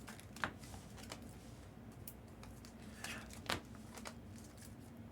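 Faint crinkling of trading-card pack wrappers and a few soft clicks of cards being handled, with a sharper click about half a second in and another about three and a half seconds in.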